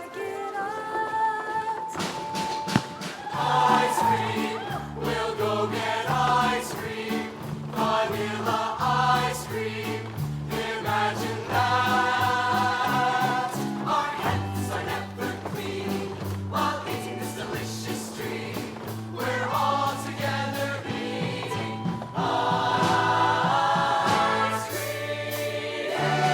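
High-school show choir singing in ensemble with a live student band of bass and drums. A held sung note opens, and the band's bass line and drum beat come in about two seconds in and carry on under the voices.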